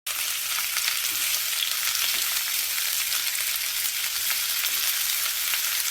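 A steady, even hiss with no rhythm or pitch.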